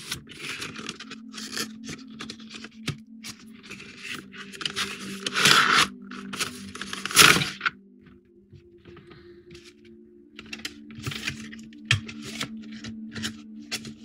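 Cardboard box and its packaging being handled and opened by hand: a run of short scrapes, rubs and rustles, with two louder ripping sounds a little past the middle.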